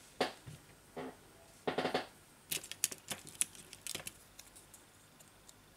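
Small phone parts and tools being handled on a workbench: a few short, duller knocks, then a quick run of sharp little clicks and taps about halfway through.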